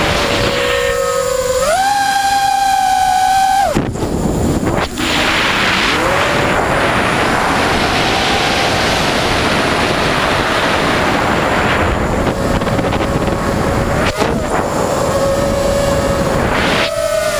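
Whine of a QAV210 quadcopter's Emax 2205 2300 KV brushless motors spinning 5-inch three-blade props, heard from the onboard camera. The whine jumps higher about two seconds in, drops abruptly near four seconds, then runs lower under a rushing wind noise and climbs again near the end, following the throttle.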